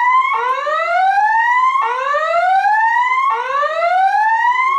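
Voice-evacuation fire alarm speaker sounding its whoop alert tone: a rising sweep repeating about every one and a half seconds. This is the emergency signal that alternates with the recorded order to evacuate the building.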